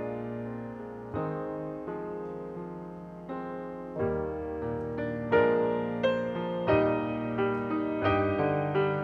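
Solo piano playing slow chords, each struck and left to die away, growing louder about halfway through.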